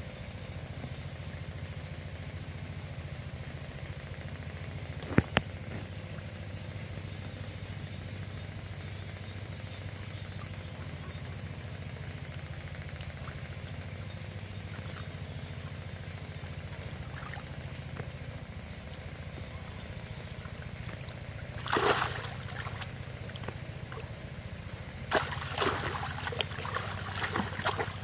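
A motor hums steadily and low throughout, with a single sharp knock about five seconds in. About 22 seconds in, and again from about 25 seconds on, water splashes and drips as a cast net full of fish is hauled up out of the shallow pond.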